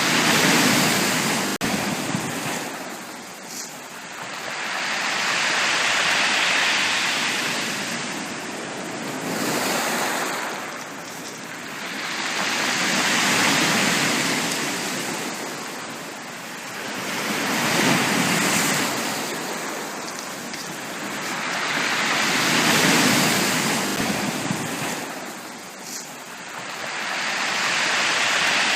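Sea waves breaking and washing up a beach, each surge swelling and falling back about every four to five seconds.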